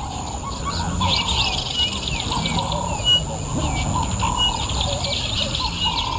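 Several wild birds chirping and calling at once, short quick chirps and warbling notes overlapping, over a steady low background noise.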